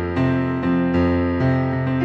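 Background piano music with notes struck about twice a second over held bass notes.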